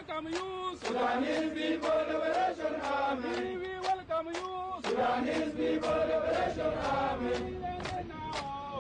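Chanted vocal music: a voice chanting a wavering melody with long held notes, with no aircraft sound audible.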